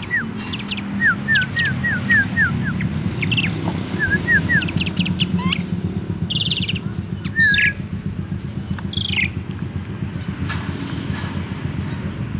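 Asian pied starling (jalak suren) chirping: quick runs of short, falling notes in the first few seconds, then a few scattered higher calls, over a steady low hum.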